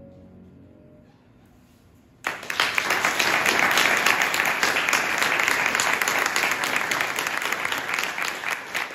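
The last notes of a grand piano fade away, then an audience suddenly breaks into applause a little over two seconds in and keeps clapping steadily.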